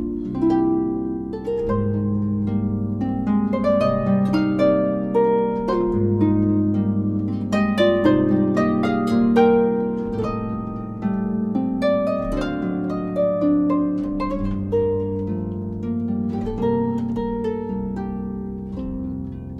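Harp music: a continuous flow of plucked notes, chords under a melody, each note ringing and dying away.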